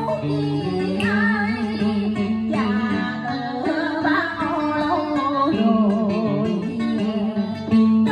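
A woman singing through a microphone and PA, her voice wavering in a wide vibrato, over a plucked guitar accompaniment.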